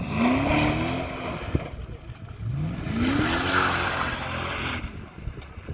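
Jeep Grand Cherokee's 5.7-litre V8 revved hard twice, the engine note rising in pitch with each surge, a rushing noise riding on it. A single sharp knock comes between the two surges.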